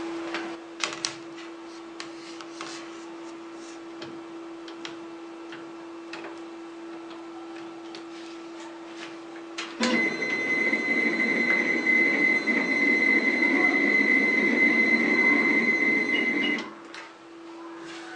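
A4 flatbed inkjet printer: a steady low hum with scattered light clicks as USB flash drives are set on its tray. About ten seconds in, the tray-feed motor starts sharply with a loud whirr and a high steady whine. It runs for about seven seconds as the print bed is drawn into the printer, then stops.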